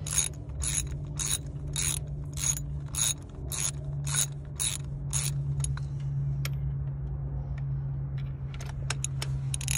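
Ratchet wrench clicking as it is swung back and forth to loosen a bolt on the engine's top cover, in quick regular strokes about two or three a second, turning into slower scattered clicks after about six seconds. A steady low hum runs underneath.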